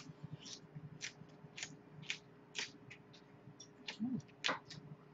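Crisp, crunchy chewing of raw leafy greens, a crunch about twice a second. A brief low hum comes about four seconds in.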